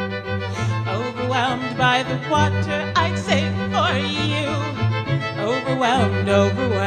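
A woman singing long, wavering melodic lines without clear words over violin and deep held bass notes, in a live performance that mixes strings, voice and electronic effects.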